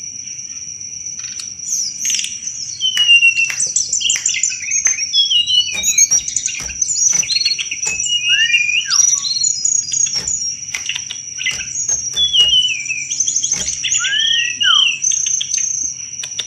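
Tledekan gunung songbird singing a fast, varied chattering song of quick whistles, slurred notes, trills and sharp clicks, over a steady high-pitched whine.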